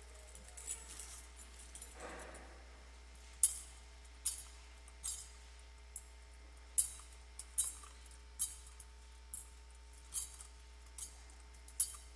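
Metal thurible clinking on its chains as it is swung to incense the Gospel book before the reading. Sharp jingling clinks come in three sets of three, about one every 0.8 s, with short pauses between the sets.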